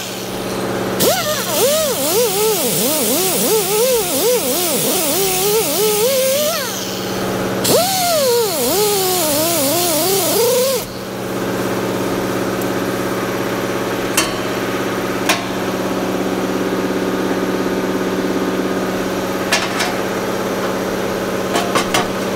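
Pneumatic die grinder with a small sanding disc grinding down a TIG weld on sheet steel, its pitch swooping up and down as it is pressed on and eased off, in two runs with a short pause between. It stops about halfway through, leaving a steady hiss and a few light taps near the end.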